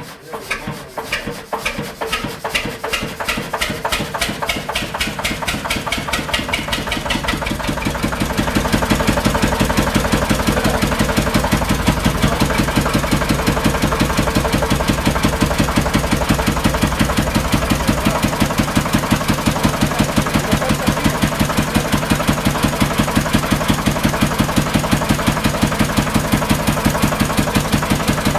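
Vintage vertical stationary engine starting up: it fires and picks up speed over the first several seconds, its exhaust beat quickening and growing louder, then runs steadily with an even, rapid beat.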